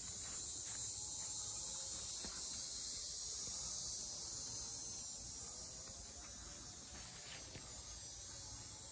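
A steady, high insect chorus of crickets or similar insects, with a few faint footsteps near the start.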